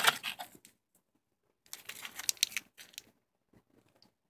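A phone battery in a plastic bag is lifted out of a cardboard box: the bag crinkles and the cardboard rustles. This comes in two short bouts of handling noise with a pause between them.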